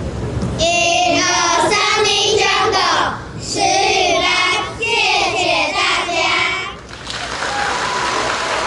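A group of children singing together in two phrases, the second ending about seven seconds in. Applause starts near the end.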